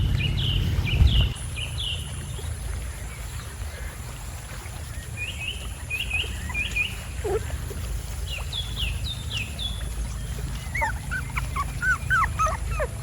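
Short high chirping animal calls come in groups over a steady low rumble, with a quick flurry of lower chirps near the end.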